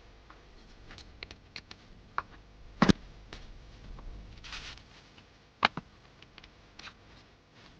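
Scattered clicks and light knocks of parts being handled on a workbench, with two sharper knocks about three seconds and five and a half seconds in, and a brief rustle between them.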